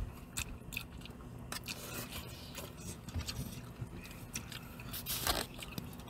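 Close mouth sounds of chewing a spoonful of rice, with small clicks and scrapes from a plastic spoon and plastic takeout containers. A louder plastic rustle comes about five seconds in as a container is handled.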